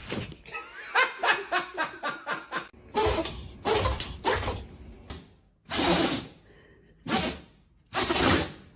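A dog sneezing again and again, each sneeze a short sharp burst, the last three about a second apart. A person laughs in a quick run of short bursts near the start.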